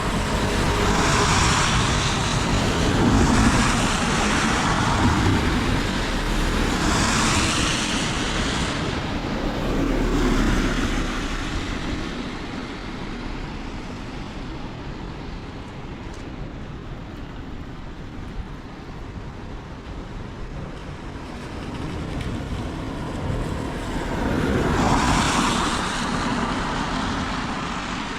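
Cars passing one after another on a wet road, their tyres hissing as each swells up and fades, over steady heavy rain. Several pass in the first ten seconds and another near the end.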